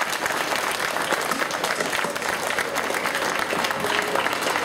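A crowd applauding: a steady, sustained round of clapping from many people.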